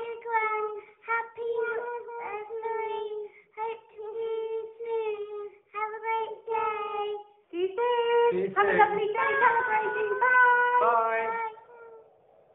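Young girls singing a song together in short phrases of held notes. About eight seconds in, more voices join and the singing grows fuller and louder, then stops near the end.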